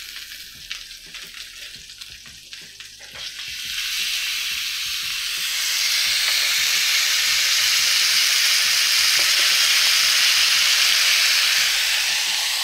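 New York strip steaks sizzling on a hot ridged griddle pan as they sear: a light crackle with a few sharp clicks at first, then a loud, steady sizzle from about four seconds in.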